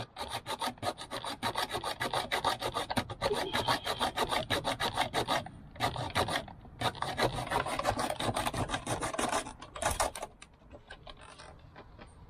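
Hand hacksaw sawing with quick back-and-forth rasping strokes, pausing briefly about halfway and stopping near the end. It is cutting the seat backing free because its screws cannot be reached.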